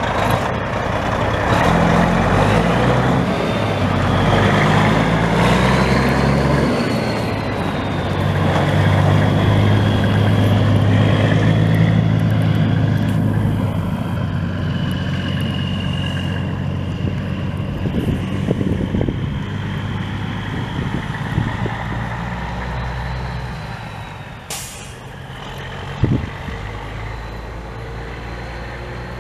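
Caterpillar 3406 turbo diesel of a 1998 International 9300 semi truck running, its engine note shifting in steps, with a high whistle drifting in pitch above it. Near the end the engine quietens, with a brief hiss and a sharp knock.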